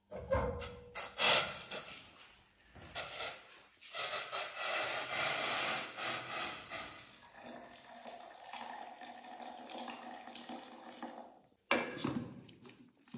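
Water poured from a steel pot into a plastic blender jar: a steady splashing pour that tapers off. It starts a few seconds in after some knocks of the pot being handled, and near the end the jar's lid is knocked into place.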